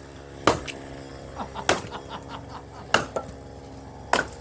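Axe striking firewood four times, about a second and a quarter apart, each a sharp knock with some splintering clatter after the second.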